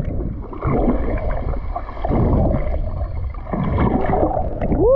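Muffled underwater sound from a camera held just below the surface of the sea: water sloshing and gurgling against the microphone, with a faint steady high whine under it. A short rising-then-falling tone comes right at the end.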